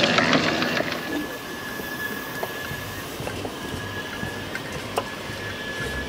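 Grand-scale live steam locomotive running on its track, with a loud rapid clatter of wheels over the rails that stops about a second in. A quieter steady hiss with a thin high tone follows from the stopped locomotive as it is fired with wood, and a sharp knock about five seconds in, typical of firewood going into the firebox.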